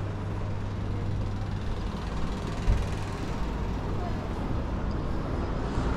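Shopping-street ambience: a steady low hum with indistinct background voices, and a brief knock about two and a half seconds in.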